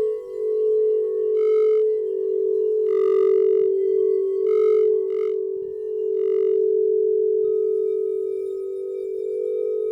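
Crystal singing bowl ringing a steady low hum with a slow wavering beat. Five short, higher ringing notes sound over it in the first two-thirds.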